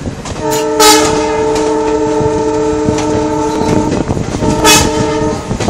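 Passenger train's locomotive horn blown twice, a long blast of about three seconds and then a shorter one of about a second, heard from aboard the moving train. Under it the coaches clatter on the rails, with a couple of sharp knocks.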